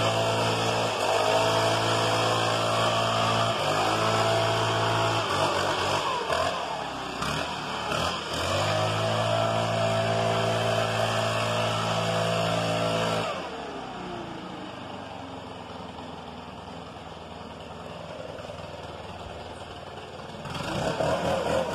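Stihl BR 600 backpack leaf blower with its 4-MIX engine running under throttle, blowing hard, its pitch rising and falling several times as the throttle is worked. About thirteen seconds in the throttle is released and it drops to a low idle, then revs back up near the end.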